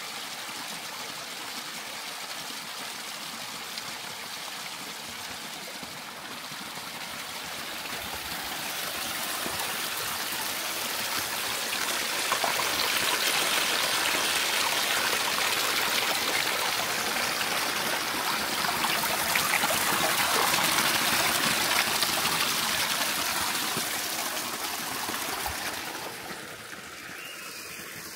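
A mountain stream running, growing louder about a third of the way in and fading again near the end.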